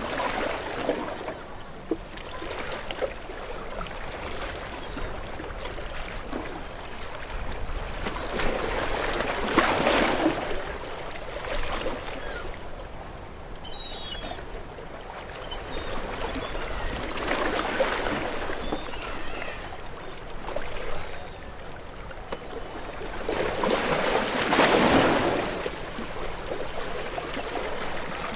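Ocean waves breaking on a rocky shore: four surges about seven to eight seconds apart, each swelling up and washing back, over a steady hiss of moving water. The surges about a third of the way in and near the end are the loudest.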